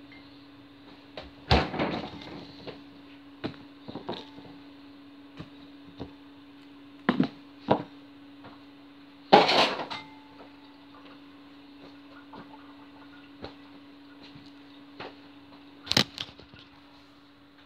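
Kitchen handling noises: a series of knocks and clatters of things being moved and set down, the loudest a short clattering burst about nine seconds in, with other sharp bangs about a second and a half in and near the end. A steady low hum runs underneath.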